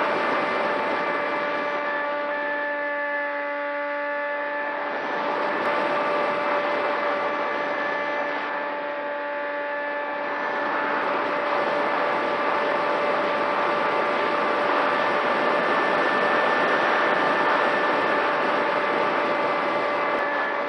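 Onboard audio of a flying radio-controlled FPV aircraft: a steady electric hum of several fixed tones over a rushing noise that swells and fades with the flight.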